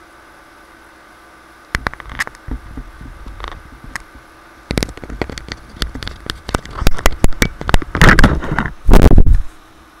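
Knocks, clicks and rustling right on a webcam's microphone as the webcam is brushed and grabbed. They start about two seconds in, come in clusters and are loudest near the end, over a steady computer hum.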